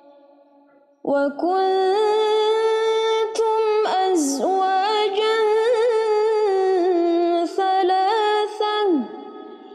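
A woman reciting the Quran in melodic murottal style in maqam bayati, holding long drawn-out notes with small ornamental turns. The voice comes in about a second in after a pause and closes with a falling glide near the end.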